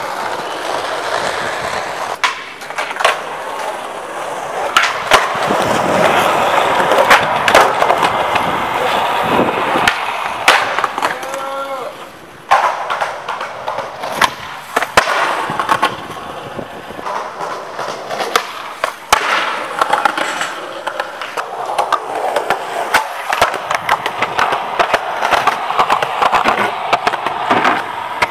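Skateboard wheels rolling over concrete, broken by repeated sharp cracks of the board popping and landing. The rolling noise drops and changes abruptly about twelve seconds in.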